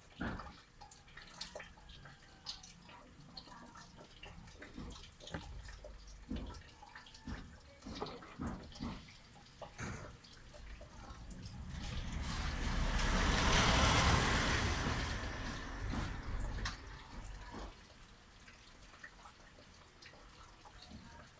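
Rainwater dripping and splashing in irregular drops. In the middle, a rushing noise swells over a few seconds and fades again.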